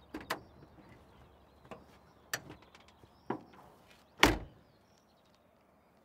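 Car door of an old off-road vehicle: the latch clicks open, a few small knocks and clicks follow as the driver climbs out, then the door is slammed shut about four seconds in, the loudest sound.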